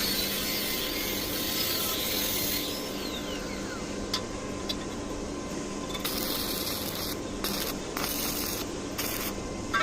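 Metalworking noise on thin sheet metal: a steady hiss with a couple of sharp clicks, then from about two-thirds of the way through the hiss switches on and off in short bursts.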